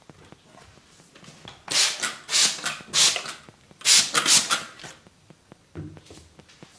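Hands rubbing briskly during a head and body massage: two runs of three or four rough, hissy strokes, about two and four seconds in.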